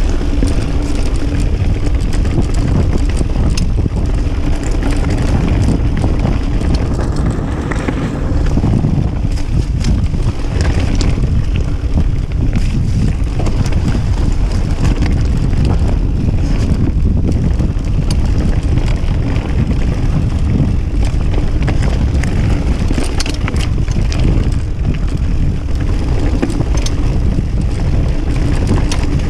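Wind buffeting a GoPro Hero 5 Session's microphone as a Kona Process 153 mountain bike rides down a stony trail, with tyres crunching over loose stones and frequent small rattles and clicks from the bike.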